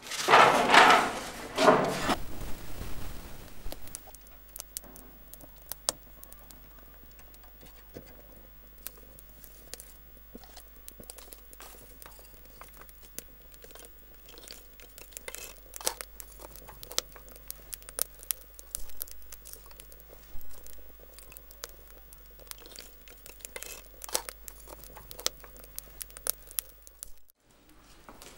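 Firewood burning in a clay hearth, crackling and popping in many sharp, irregular snaps over a low steady hum. It is preceded at the very start by a loud two-part burst of noise lasting about two seconds.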